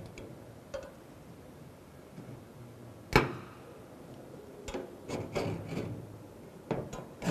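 A sharp metallic tap on the steel plate about three seconds in, then several short scratching strokes of a scriber drawing a marking line along a small square on sheet steel.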